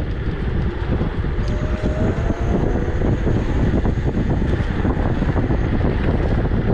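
Steady wind noise buffeting the handlebar camera's microphone while riding an Emove Cruiser electric scooter, with a low rumble and small clicks from the ride underneath.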